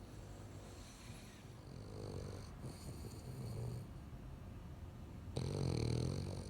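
French bulldog snoring in its sleep: a run of several snores, the loudest about five and a half seconds in.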